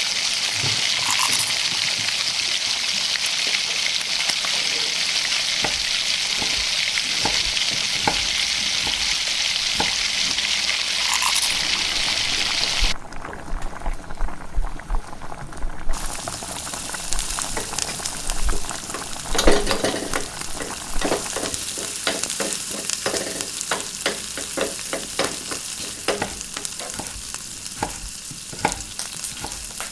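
Food frying in a hot pan with a steady sizzle. About halfway the sizzle drops away abruptly, and a utensil scrapes and stirs the pan in quick repeated strokes over a lighter sizzle.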